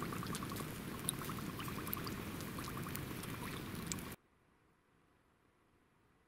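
Small fire of paper, cardboard and dry leaves burning, with a steady hiss and scattered sharp crackles and pops. It cuts off abruptly about four seconds in.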